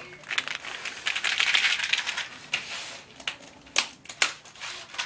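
A pouch of Whiskas Temptations cat treats being shaken, the dry treats rattling inside for about two seconds, followed by two sharp clicks.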